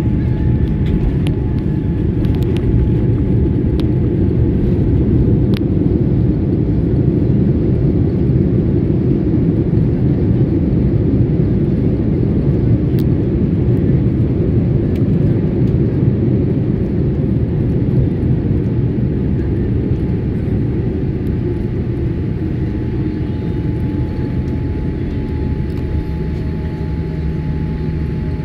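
Cabin sound of a Boeing 787 Dreamliner on its landing roll: a loud, steady low rumble of engines, rushing air and wheels on the runway, easing off somewhat in the last several seconds as the jet slows.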